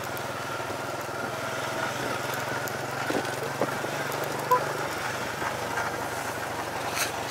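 A vehicle engine running steadily, with a few light clicks.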